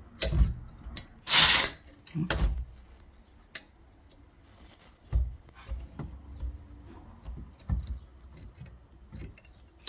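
Irregular knocks, clicks and clunks of door-lock hardware and tools being handled during installation on a door, with a short loud rasping noise about a second and a half in.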